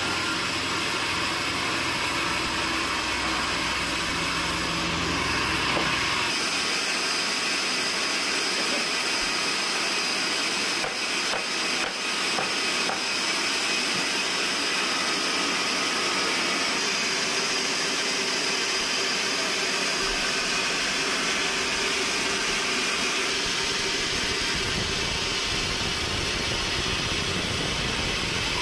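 Large band sawmill running, its blade cutting lengthwise through a big log with a steady, hissing saw noise. The sound shifts about six seconds in, and a low rumble comes back about twenty seconds in.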